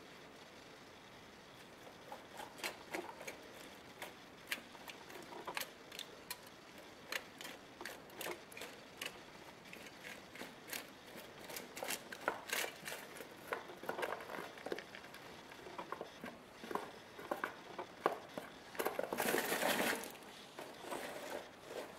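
Crumpled aluminium foil crinkling and straw rustling in irregular short crackles as a young least weasel moves about underneath, with a louder rustle lasting about a second near the end.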